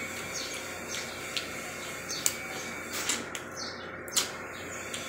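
Close-up eating sounds of air-fried shrimp being peeled by hand and chewed: scattered sharp clicks and smacks, a few of them louder, with short high chirps in the background.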